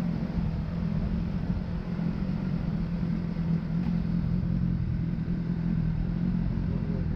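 Motorcycle engine running at a steady, low road speed: a constant low drone with rumble underneath.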